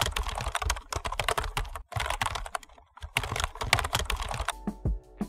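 Rapid typing on a computer keyboard, a quick run of key clicks with a short pause about halfway through, stopping about a second before the end, when faint steady tones come in.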